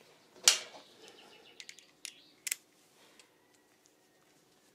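A sharp metallic click about half a second in, followed by a few lighter clicks and taps as hand tools and small engine parts are handled on a workbench.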